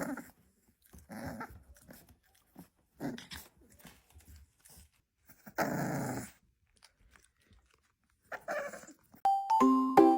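A dog making a series of short vocal sounds, about six of them with gaps between, the longest a little past halfway. Near the end a bright, tinkling tune of mallet-like notes begins.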